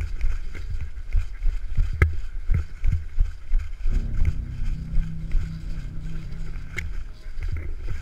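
Footsteps through dry leaf litter and grass, with low rumbling handling noise on the body-worn camera's microphone as the wearer moves. It is broken by a couple of sharp clicks, about two seconds in and near the end.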